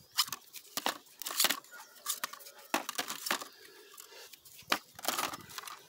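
Plastic jars packed with sawdust mushroom substrate being handled and turned upside down in a plastic crate: irregular plastic clicks, knocks and rustling.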